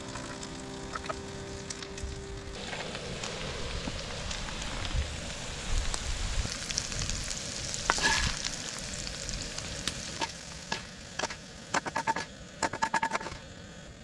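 Bacon and corn sizzling in a hot cast-iron skillet, with a wooden spatula scraping and knocking against the pan as the food is spooned out. The sharpest knock comes about eight seconds in, and a cluster of clinks follows near the end.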